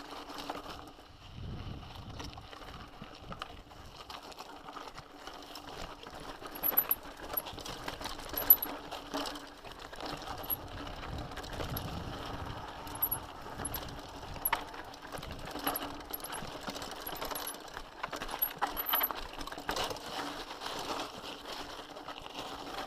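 Cannondale mountain bike rattling over a rough trail: irregular metallic clicks, clinks and knocks from the chain and frame over a steady rolling noise, with a few sharper knocks along the way.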